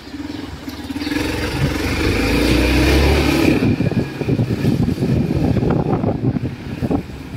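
Street traffic: a motor vehicle's engine note rises and passes close by, loudest about three seconds in, then settles into a general road hum.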